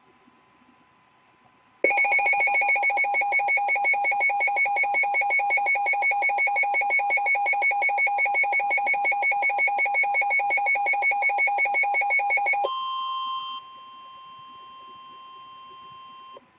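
Emergency Alert System alert tones. Nearly two seconds in, a loud, fast-pulsing alarm tone starts and runs for about eleven seconds. It changes briefly to a different tone, then gives way to a quieter steady single tone of about 1 kHz, which cuts off suddenly near the end, just before the tornado warning message.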